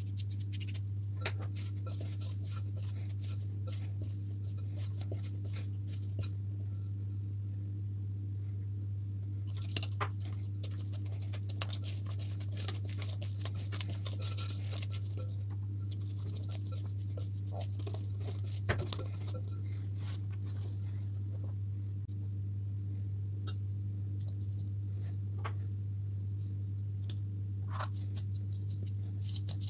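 Scattered soft taps and clicks of a spatula and hands working bread dough in a glass mixing bowl, over a steady low hum.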